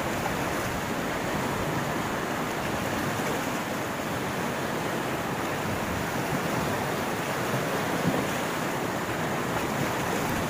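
Fast mountain river rushing through rapids: a steady, even roar of churning water.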